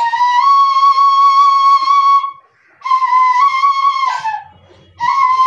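Bamboo flute (bansuri) blown in three long, steady notes at about the same pitch, with short breaks between them. The third note begins near the end.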